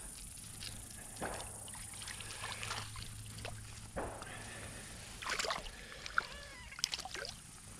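A small hooked fish splashing at the water surface as it is pulled in on a fly line, with a run of short, irregular splashes that are loudest near the end.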